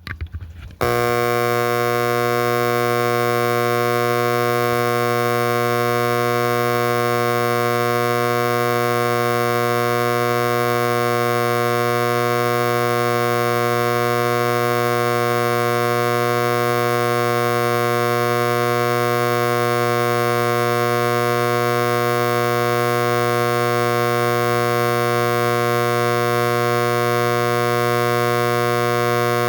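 Edwards AC Adaptahorn vintage fire alarm horn switched on about a second in and then sounding continuously: a loud, steady, unbroken buzz.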